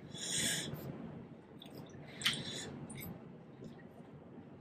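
Faint wet squishing of shell-on prawns being peeled by hand and eaten, in two short bursts, one at the start and another about two seconds in, with a few small clicks between.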